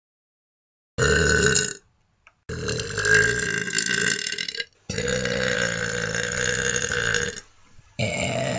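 A person burping loudly, over and over: a short burp about a second in, then two long drawn-out burps of about two seconds each, and another long one starting near the end.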